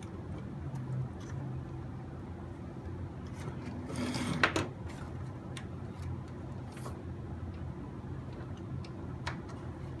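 Small scattered clicks and taps of a screwdriver and metal drive-chain parts being handled on a Kyosho Blizzard RC snowcat while the chain tension is adjusted, with one short, louder rattling scrape about four seconds in.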